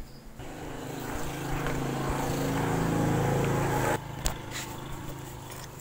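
A motor or engine running with a steady hum, growing louder over about three seconds and then cutting off suddenly about four seconds in.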